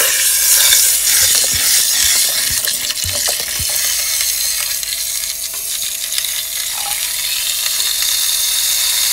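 Red wine poured from a bottle into a hot metal pot on a wood-burning stove, hissing and sizzling steadily as it hits the hot metal, with a few faint knocks in the first few seconds.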